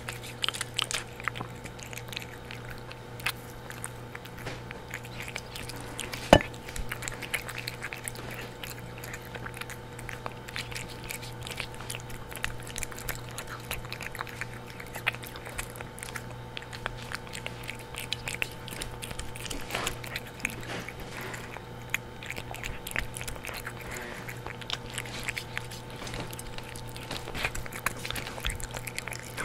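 Cat eating wet food from a stainless-steel bowl: a steady run of small, wet chewing and licking clicks, with one louder click about six seconds in. A steady low hum runs underneath.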